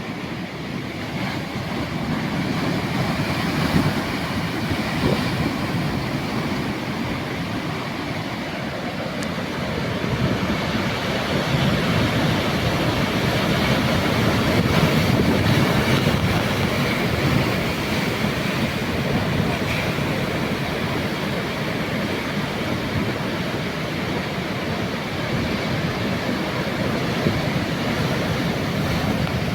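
Ocean surf: waves breaking and washing in a continuous rumble that swells louder in the middle.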